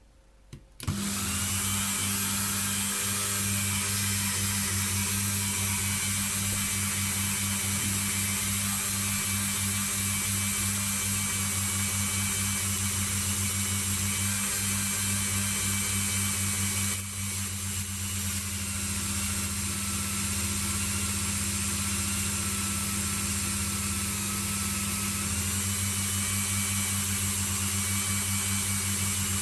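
Dremel rotary tool switched on about a second in and then running steadily at high speed, with a low hum and a high whine, spinning a felt polishing wheel against a small metal part. The sound wavers briefly just past halfway.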